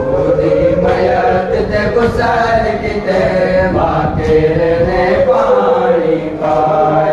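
Male voices chanting a Shia noha (Muharram lament) in unison, a slow refrain with long held notes.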